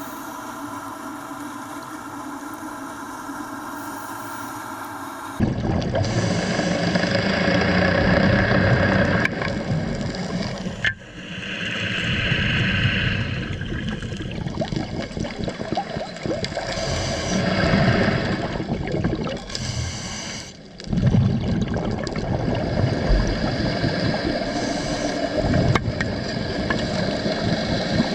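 A steady hum that cuts off suddenly about five seconds in, followed by loud, uneven gurgling and splashing of water.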